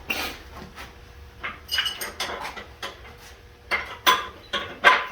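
Irregular metal clanks and clinks, a string of sharp knocks with brief ringing, the loudest about four to five seconds in, as metal tools or parts are handled.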